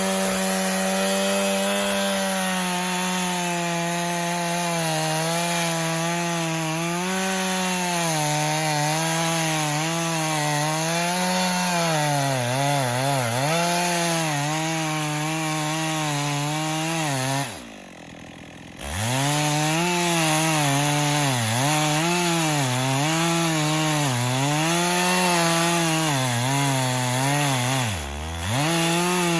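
Chainsaw at high revs cutting a felling notch into a tree trunk, its engine pitch sagging and recovering over and over as the chain bites into the wood. About two-thirds of the way in the throttle is let off and the engine drops toward idle for about a second before revving up again, with a shorter dip near the end.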